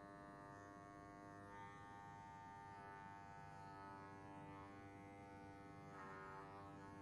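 Electric hair clippers running with a faint, steady buzz while cropping short hair.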